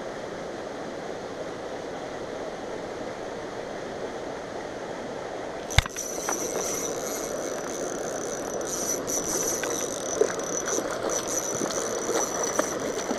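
Steady rush of flowing water, then a sharp knock about six seconds in. After it, a fishing reel is cranked: quick irregular ticking with a thin high whine over the water.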